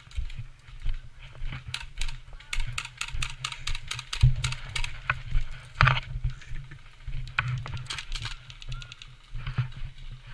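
A run of irregular sharp clicks and snaps, packed into quick bursts in places, over a steady low rumble.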